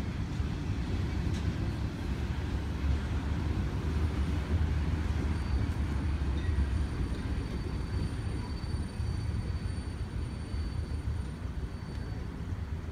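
Intermodal freight train's cars, loaded with truck trailers, rolling past on the rails: a steady low rumble that eases slightly in the last few seconds as the end of the train goes by.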